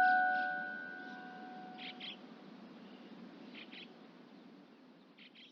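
The last notes of an outdoor public-address loudspeaker's electronic chime melody ring on and fade away over about the first second. Faint high bird chirps follow in quick pairs, roughly every one and a half to two seconds.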